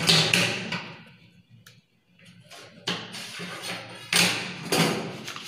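Sheets of brown pattern paper rustling and sliding over each other as a drafted blouse back pattern is moved and laid down on another sheet, in several short bursts: one at the start, then about 3 s in and again about 4 to 5 s in.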